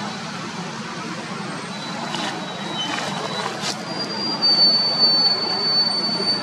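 A steady low rumble of background noise with a few soft crackles of dry leaves as a baby macaque moves over them. In the second half a thin, high, steady whistle-like tone is heard for about two seconds.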